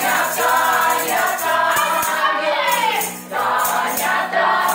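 A Gypsy ensemble singing a song in chorus, with tambourine jingles and a few sharp beats, and a brief pause about three seconds in.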